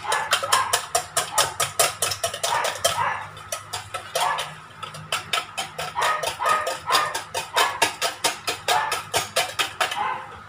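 Wire whisk beating egg whites by hand in a stainless steel bowl, clicking rapidly against the metal at about five or six strokes a second.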